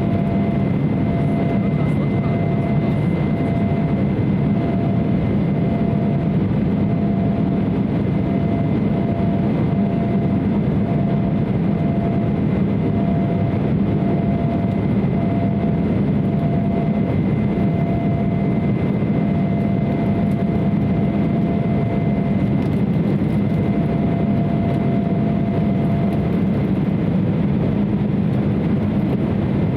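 Steady cabin noise inside an Embraer 170 airliner in climb: the even drone of its GE CF34-8E turbofan engines and the airflow past the fuselage, with a faint steady whine over it.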